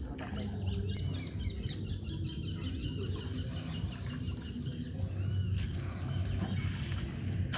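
Riverside forest ambience: a steady high drone of insects with many short, repeated bird chirps over it, above a low rumble.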